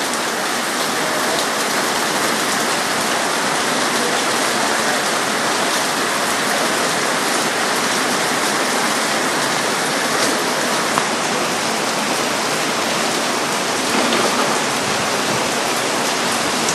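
Heavy rain pouring steadily: a dense, even hiss that holds at the same level throughout, with one brief louder tap about two-thirds of the way in.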